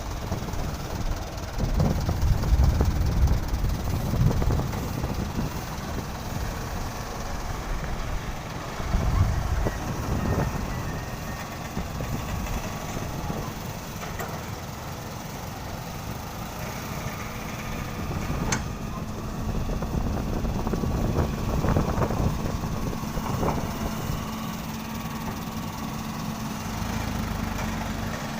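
Diesel engines of an excavator and a dump truck running at a work site, the low rumble swelling and easing as the excavator works. A sharp knock comes about two-thirds of the way through.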